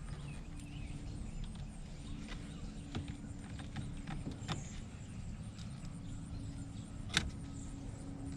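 Scattered light clicks and knocks over a steady low hum, with one sharp click about seven seconds in.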